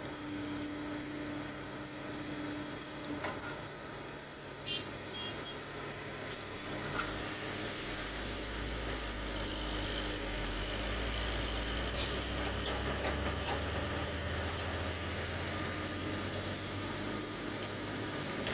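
Diesel engines of a Komatsu hydraulic excavator and a loaded dump truck running at a coal pit; from about seven seconds a deep engine rumble builds as the truck pulls away. A short, sharp burst stands out about twelve seconds in.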